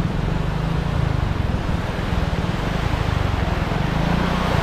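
Vehicle engine running steadily under way, with wind rushing over the microphone.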